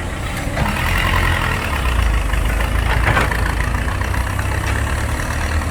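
Heavy diesel engine running steadily, growing louder about half a second in and holding there.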